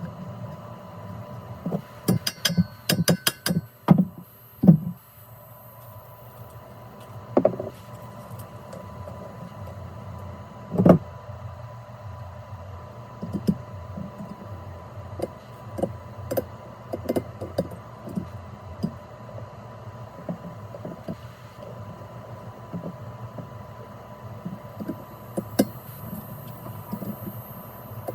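Metal parts and hand tools clinking and knocking during garage work: a quick run of sharp clicks a few seconds in, then scattered knocks, over a steady hum with a thin whine.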